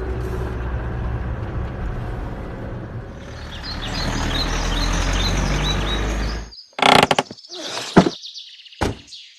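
Motorhome engine and road noise running steadily, with a quick run of bird chirps about three seconds in. The drone stops abruptly well past the halfway point, followed by a few loud, sharp knocks.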